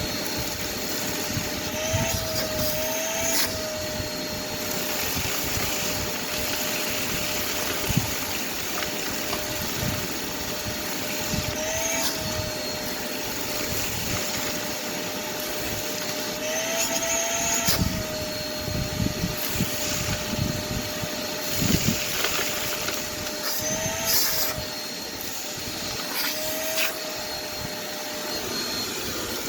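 Shop vac running steadily, sucking up broken glass from grass: a constant motor whine that lifts in pitch for a moment several times as the nozzle takes in debris, with scattered clicks and rattles of glass going up the hose.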